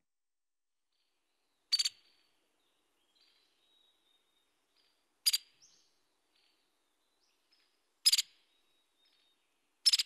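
Recorded white-headed woodpecker giving four short, sharp calls a few seconds apart, each a quick doubled note. Faint high whistles sound between the calls.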